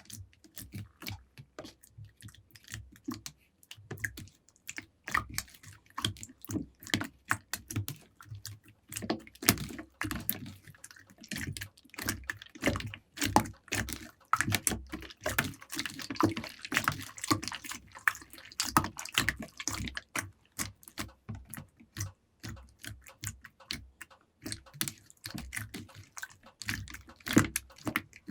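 Slime being squished and pressed by hand, giving a dense run of sticky clicks and little pops, busiest in the middle stretch.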